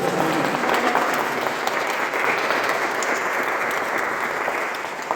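A group of people applauding, a dense patter of many hands clapping that fades near the end.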